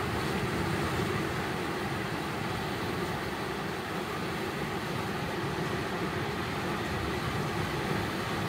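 River water rushing steadily over a shallow rapid of white standing waves, an even, unbroken rush.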